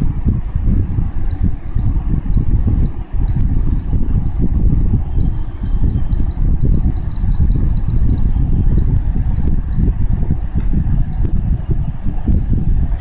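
The laser alarm circuit's buzzer sounding in a high steady tone that switches on and off irregularly: long beeps at first, a run of short quick beeps in the middle, then longer beeps again, as the alarm is triggered and released. A loud low rumble runs underneath throughout.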